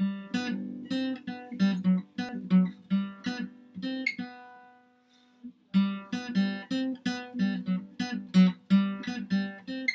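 Acoustic guitar strummed in a steady rhythm, with no voice: the song's instrumental intro. The strumming pauses about four seconds in while a chord rings on, and picks up again over a second later.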